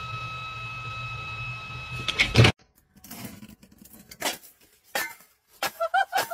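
A steady high whine over a low hum, ending in a brief loud clatter about two seconds in. Then a stainless steel dog bowl knocking and scraping on tiled steps several times as a puppy slides down in it.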